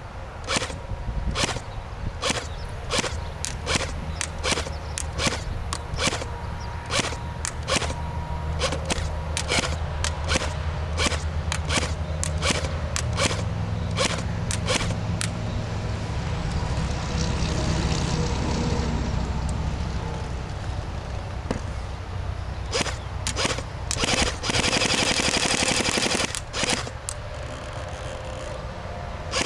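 Thompson M1928 airsoft electric gun firing a string of single shots in semi-auto, about two a second. Near the end it switches to full-auto, with a rapid burst of about two seconds and another starting right at the end.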